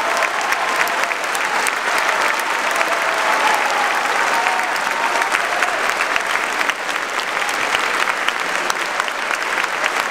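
Opera audience applauding steadily during the cast's curtain call, with a few voices calling out above the clapping.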